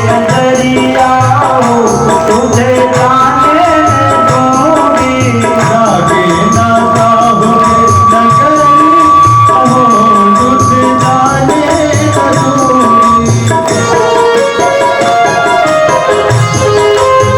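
Devotional kirtan music: a hand drum keeps a steady beat under jingling percussion, with singing and long held organ-like notes in the middle.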